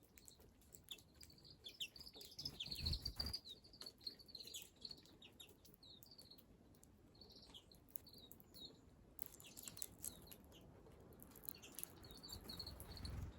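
Small wild birds chirping, short high calls coming in clusters, with scattered light clicks among them.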